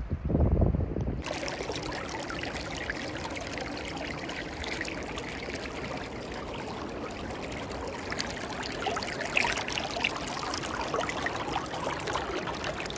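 Shallow river babbling and rippling over rocks, heard close to the water surface as a steady rushing with fine splashy detail. For about the first second a low rumble is louder, before a cut.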